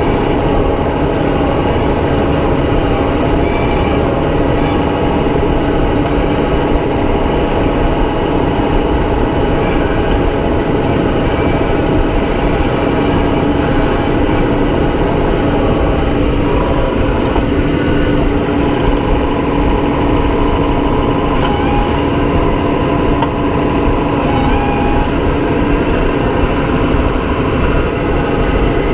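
Tractor engine running steadily under load, with a constant mechanical hum and no breaks.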